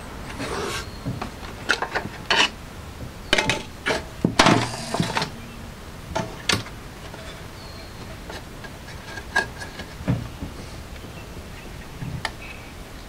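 Irregular clicks and knocks of hands handling a Lenoxx Sound BP-103 portable CD boombox. There is a quick run of sharp plastic clacks in the first half, then only a few scattered clicks.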